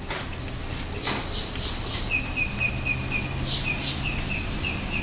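A bird calling a quick series of short, high repeated chirps, about four a second, starting about two seconds in over a steady low hum.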